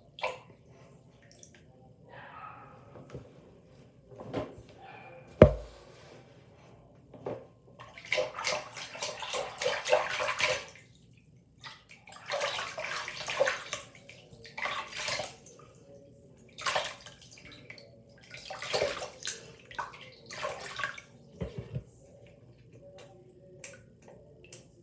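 Hands sloshing and splashing through water in a bathroom sink basin, in repeated bursts a second or two long. A single sharp knock about five seconds in is the loudest sound.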